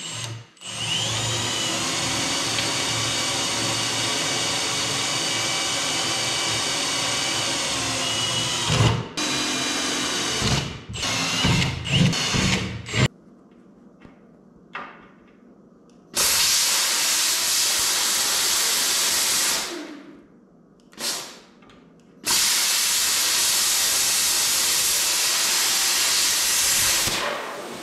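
Cordless drill boring holes in a steel plate: one long steady run with a motor whine, then several short bursts. After a pause, a hand-held plasma cutter hisses through the steel in two runs of about four and five seconds, slotting the bolt holes.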